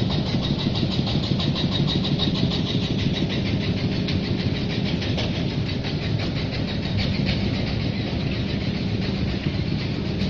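Sawdust rotary drum dryer running: a steady low machine drone with a fast, even rattle higher up.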